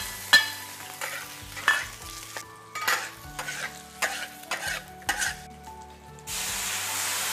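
Slices of pork stir-fried in a hot wok: a metal wok spatula scrapes and knocks against the pan again and again over a frying sizzle. Near the end the sizzle turns louder and steady for about a second.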